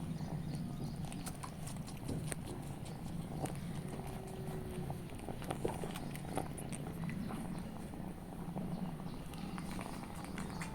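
Cat purring steadily, with small scattered clicks and smacks over it.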